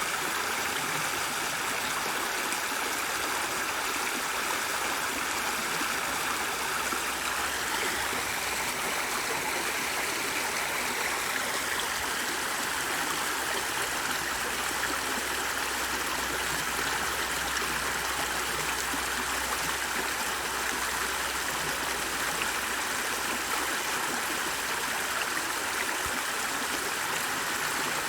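Running water, a stream flowing with a steady, even rush.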